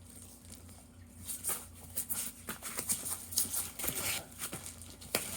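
Handlebars of a balance bike being unhooked from their packing: a string of light clicks and plastic packaging rustling, starting about a second in.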